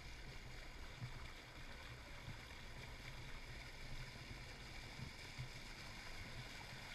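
Boat motor running steadily, heard faint and muffled as a low hum, with water noise over it.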